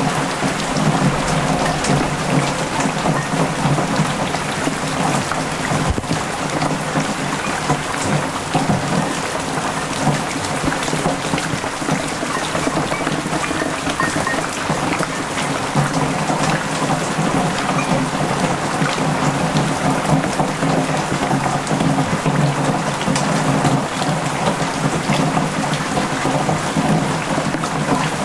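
Heavy typhoon rain falling steadily onto flooded ground and leaves, splashing into standing water with a loud, dense patter of drops.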